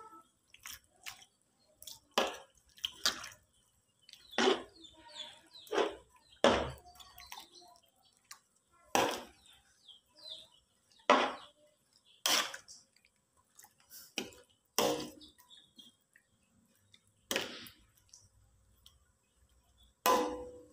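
Metal spatula scraping and knocking against a wok while stirring through a coconut-milk broth with long beans, in short irregular strokes about once a second.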